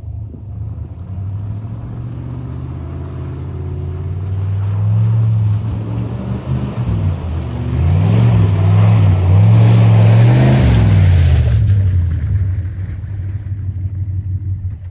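Jeep engine revving up and down several times while driving through a deep mud and water hole, with a rushing wash of water and mud spray, loudest a little past the middle. The sound cuts off suddenly at the end.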